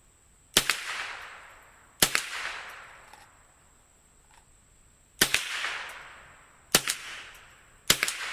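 Five rifle shots at uneven intervals, each crack followed by an echo that dies away over a second or so.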